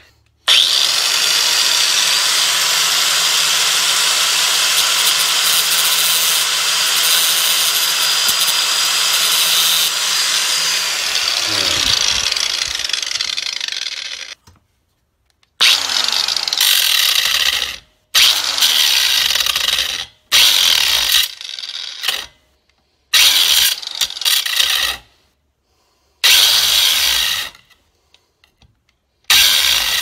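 Corded angle grinder running on a steel door-hinge pin held in a vise: one long run of about ten seconds that winds down with a falling pitch, then about half a dozen short bursts of grinding, each a second or two long, with sudden silences between. It is grinding off the worn hinge pin of a Chevy Impala driver's door hinge that could not be pressed out.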